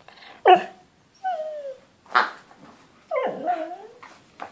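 Dog whining and yipping in play: a few short yips, one whine falling in pitch, and a longer wavering whine near the end.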